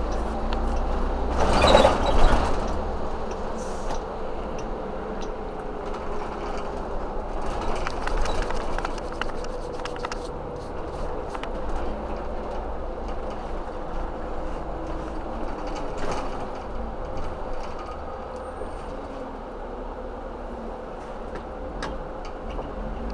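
Vehicle noise: a steady low rumble with a faint steady hum, and a brief louder rushing burst about two seconds in.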